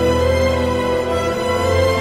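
Background music with long held notes over a sustained low bass.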